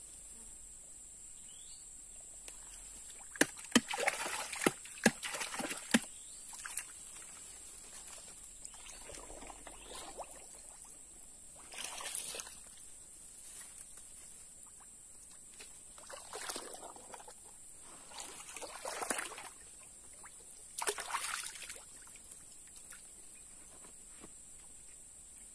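Water sloshing and splashing in short irregular bursts, some with sharp knocks, about six times, over a steady high buzz of insects.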